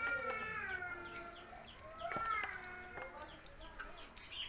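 Baby macaques crying: a drawn-out, wavering high call lasting about a second at the start, and a second shorter one about two seconds in.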